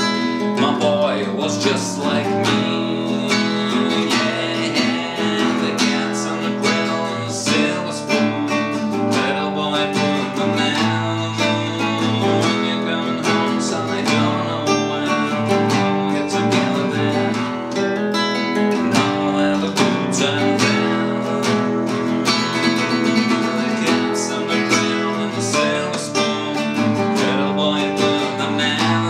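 Acoustic guitar strummed, chords ringing steadily without a break.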